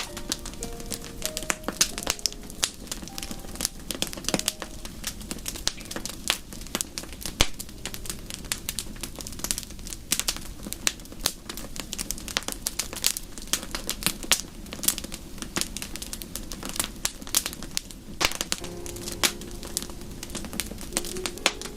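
Wood fire in a fireplace crackling, with dense, irregular sharp pops and snaps over a steady low rumble.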